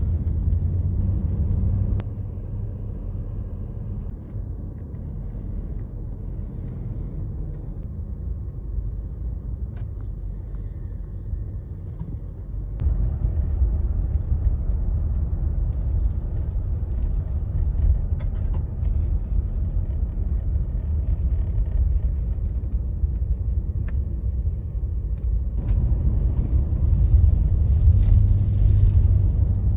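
Strong dust-storm wind, over 60 mph, buffeting the microphone as a deep rumble. It eases about two seconds in, then gusts harder again about halfway through and once more near the end.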